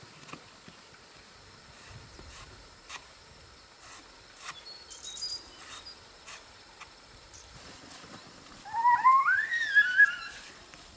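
An animal's call near the end, rising in pitch and then held, wavering, for about a second and a half, over a quiet rural background with a few faint high chirps.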